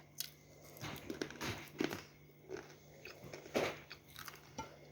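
A person biting and chewing, close up, a crumbly, partly wetted block that breaks into thin plates, with several separate crisp crunches.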